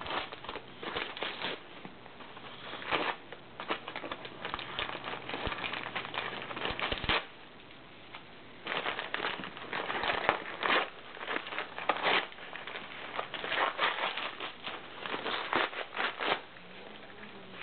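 Wrapping being pulled off a new knife and its sheath: irregular crinkling, crackling and tearing of packaging, with a short lull about seven seconds in.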